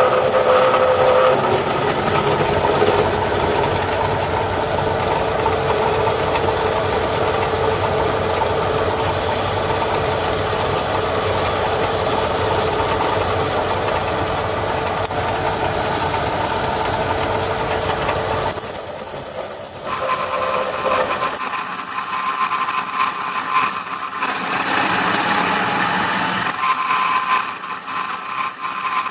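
A machine tool running with an 8 mm milling cutter cutting metal, giving a steady whirring, grinding noise. About two-thirds of the way through there is a brief high hiss. After it the cutting noise drops, leaving a lighter whine with a steady tone that comes and goes.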